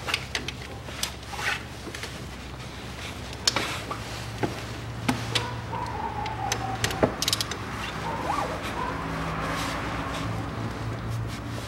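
Irregular clicks and knocks of hand tools on metal while the front engine pulley is being unbolted, over a steady low hum.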